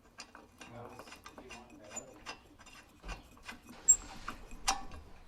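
Irregular mechanical clicks and light metal taps from hand tool work on a mower engine's flywheel, with two sharper clicks near the end.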